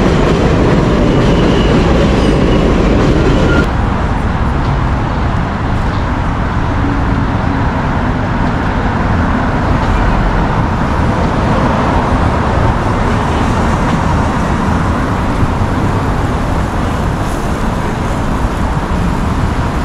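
An elevated subway train, the 7 line, runs loudly overhead on the steel elevated structure. About four seconds in the noise drops sharply and gives way to steady street traffic noise.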